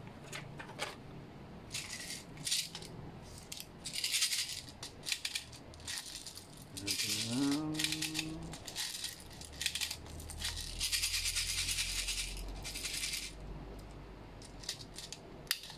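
Plastic airsoft BBs rattling and clicking as they are pushed from a handheld BB loader into a gas blowback pistol magazine, in repeated quick bursts.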